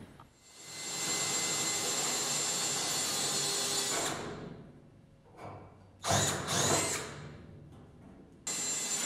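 A power drill boring holes through the sheet-steel floor pan panel and the body beneath to take clecos. There is one long run of about three seconds starting just after the beginning, a short run about six seconds in, and another starting near the end.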